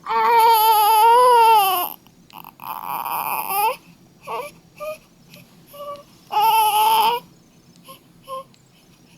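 A baby crying: a long, wavering wail at the start, a shorter, rougher cry about three seconds in, and another wail a little after six seconds, with brief whimpers between the cries.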